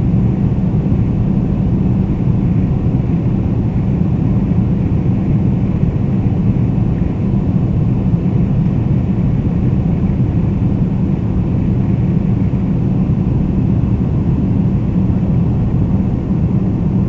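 Boeing 747-400 airliner's engines and airflow making a steady low rumble that does not change.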